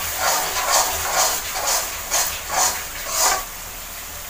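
Metal spatula stirring and scraping through a thick onion and masala mix in an aluminium kadai, about two strokes a second, over the sizzle of the paste frying in oil. The stirring stops about three and a half seconds in, leaving a steady sizzle.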